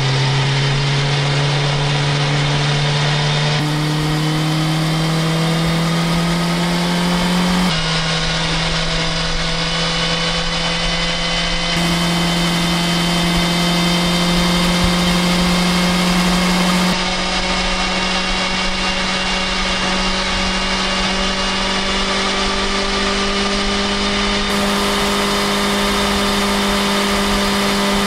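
BMW S1000XR's inline-four engine and exhaust running at a steady highway cruise, its pitch creeping slowly upward as speed builds. The recording cuts back and forth every few seconds between a cheap clip-on microphone, which has no top end and sounds duller, and a Zoom H2n recorder.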